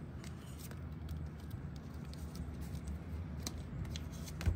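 A photocard collect book being handled: scattered light clicks and rustles of its plastic sleeves over a low steady hum, with one soft thump near the end.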